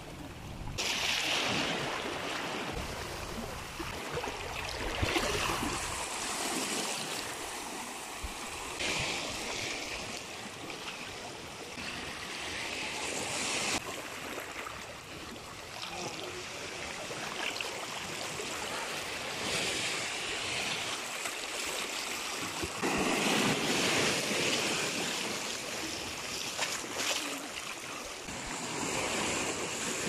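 Small ocean waves washing in over rocks and draining back through a narrow rocky channel: a continuous rush of water that swells and eases with each surge. The biggest surge comes about three-quarters of the way through.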